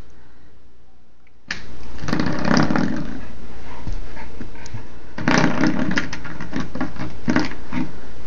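Spring doorstop twanging and buzzing as a puppy's paw flicks it again and again. The buzz comes in suddenly about a second and a half in, and again, louder, about five seconds in.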